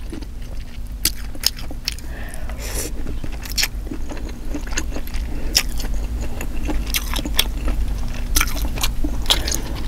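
Close-miked chewing of buttered lobster tail meat: wet mouth smacks and clicks at irregular intervals, over a steady low hum.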